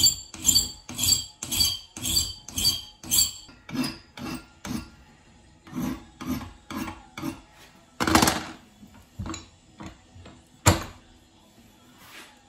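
Hand file rasping back and forth across a small saw-blade steel can-opener blank clamped in a bench vise, about two strokes a second, the strokes growing lighter after about four seconds. A louder scrape comes about eight seconds in, and a single sharp knock near the end.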